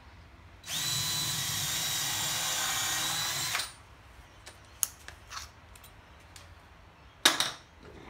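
DeWalt cordless drill running steadily for about three seconds with a steady whine, boring a 3.5 mm pilot hole for a screw into timber, then stopping. A few light clicks follow, and a sharp knock near the end.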